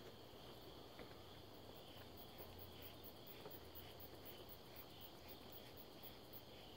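Near silence with faint insects chirping in a steady, quick rhythm of about four pulses a second, clearest from about two seconds in.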